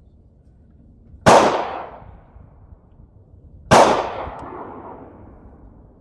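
Two gunshots about two and a half seconds apart, each a sharp crack with a long trailing echo.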